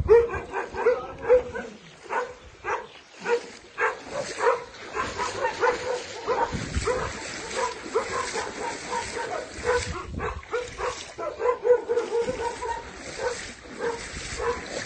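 A dog barking and yelping over and over in quick, short, fairly high calls, with a few brief pauses.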